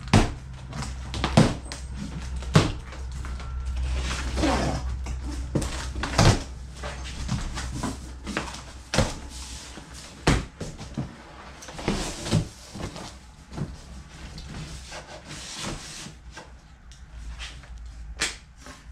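Large cardboard shipping box being opened by hand: plastic packing straps pulled off and heavy cardboard flaps pried and folded open, giving a run of sharp cardboard knocks with scraping and rustling in between.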